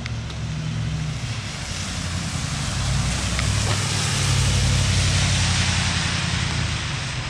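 A motor vehicle passing by on a wet road: a low engine hum and tyre hiss that grow louder to a peak about halfway through, then fade.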